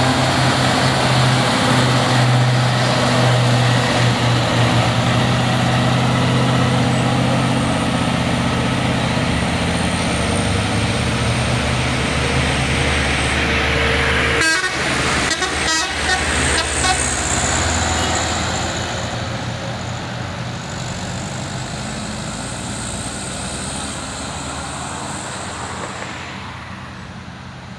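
Diesel engine of a heavy tractor-trailer hauling a loaded double-container trailer, labouring steadily at low speed up a steep hill. There is a short run of sharp clicks about halfway through, and then the engine sound fades as the truck moves away.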